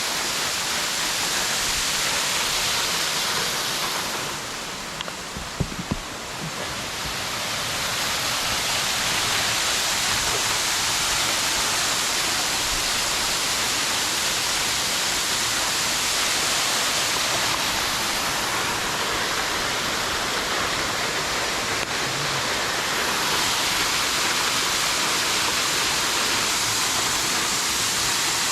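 Waterfall rushing steadily, a dense hiss of falling water. It softens briefly about five seconds in, with a couple of sharp knocks.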